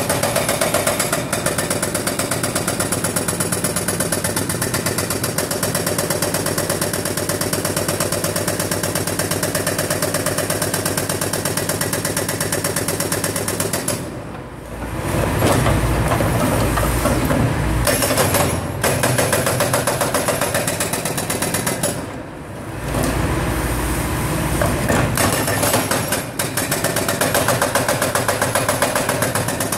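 Hydraulic breaker (TOPA 900) on a John Deere 710G backhoe loader hammering in rapid, steady blows. It stops twice for a second or so, about halfway through and again about three-quarters through, leaving the backhoe's engine rumbling in the gaps.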